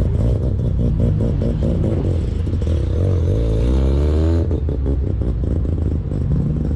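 Mazda RX-7 rotary engine idling with a choppy, uneven brap. About three seconds in it revs up, climbing in pitch for about a second, then drops sharply back to idle.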